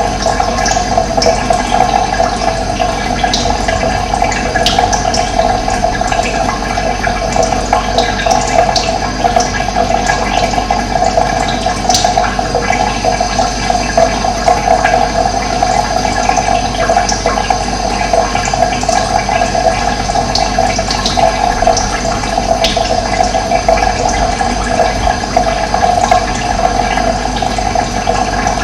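Steady rush of running water, with faint, scattered short bird chirps over it.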